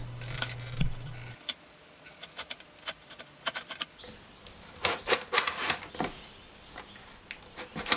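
Metal mitre table of a GMC MS190 mitre saw being swung by hand, clicking into its detent stops at the common angles. A series of sharp clicks, the loudest in a quick cluster about five seconds in.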